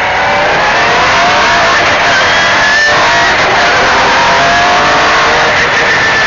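MG Metro 6R4's 3-litre V6 engine revving hard under acceleration, its pitch climbing, breaking off at a gear change about three seconds in, then climbing again.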